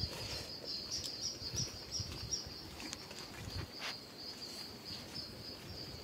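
Insects in the forest keeping up a steady, high-pitched drone that swells slightly now and then, with faint rustling and a single click about four seconds in.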